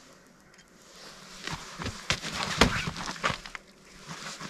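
Rustling and irregular sharp knocks of gear being handled, starting about a second in after a quiet moment.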